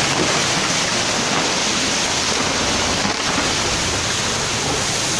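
Loud, steady rush of floodwater pouring past.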